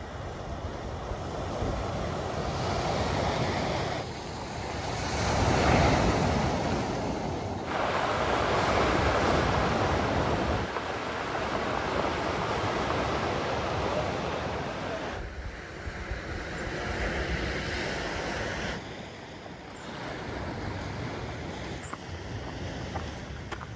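Small waves breaking and washing up a pebble beach, the surf swelling and ebbing.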